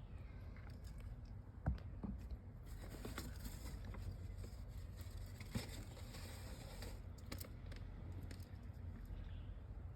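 Faint rustling and scratching of a pet hamster moving about, with two sharp clicks, one a little under two seconds in and one just past halfway.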